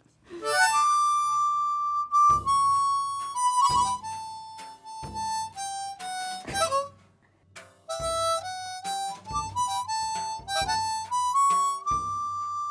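Harmonica playing a slow tune: a long high note falling step by step, a short break about seven seconds in, then a phrase climbing back up to the high note. A drum kit strikes along about once every second and a bit.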